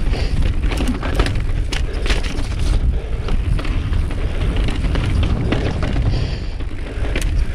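Mountain bike rolling down rough rock slabs: a steady low rumble from the tyres on the rock, with frequent sharp knocks and clatters from the bike jolting over the bumps.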